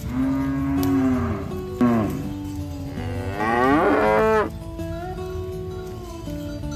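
Cattle mooing: three moos, the last and loudest about a second and a half long, over steady background music.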